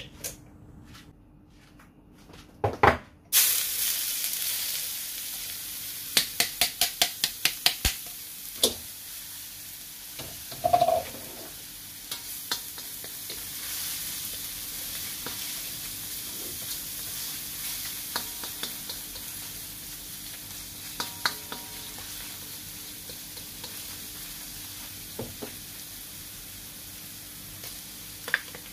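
Minced onion dropped into hot oil in a wok, then a steady sizzle of frying while a metal spatula stirs and scrapes the pan in quick runs of clicking strokes.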